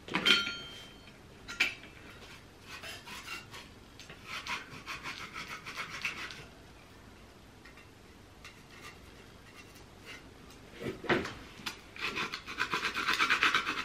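Hand scraper rasping old paper and white coating off a water-wetted wall in quick repeated strokes, in two runs with a pause between. A spray bottle squirts water onto the wall near the start.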